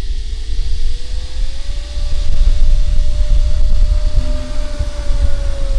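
Electric motor and propeller of an FMS P-47 Thunderbolt RC model in flight, a steady whine whose pitch rises over the first couple of seconds, holds, then eases down near the end. A low rumble of wind on the microphone runs under it and is the loudest part.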